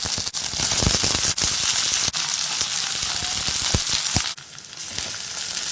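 Brinjal pieces frying in hot oil: a loud, steady sizzle with sharp crackles and pops of spattering oil. It drops briefly about four and a half seconds in, then picks up again.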